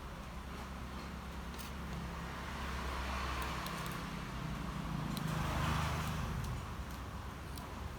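A motor vehicle passing by, its noise swelling to a peak about five to six seconds in and then fading, over a low hum with a few faint clicks.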